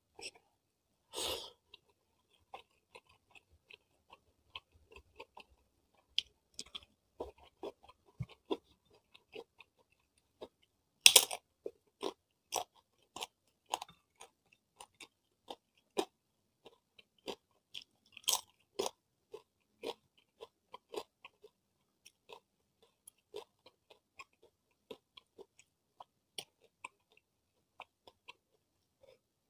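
A person chewing rice and crisp cassava chips: a run of short, crisp crunches and mouth clicks, with louder crunches about a second in, around eleven seconds in and around eighteen seconds in.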